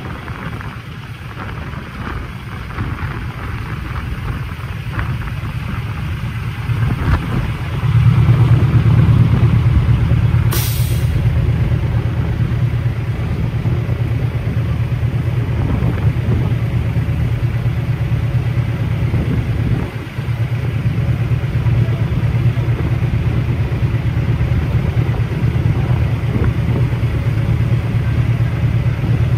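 Heavy truck's diesel engine running with a steady low hum that grows louder about eight seconds in. A brief hiss of air comes a couple of seconds later.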